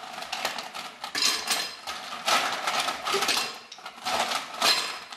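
Ice cubes clinking and clattering again and again as they are scooped by hand from a ceramic bowl and dropped into a glass blender jar.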